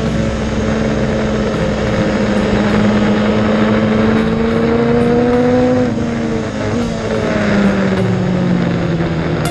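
Kawasaki ZX-10R inline-four engine at speed on board the bike, revs climbing steadily under throttle, then dropping in two steps about six and seven seconds in, over a steady rushing noise.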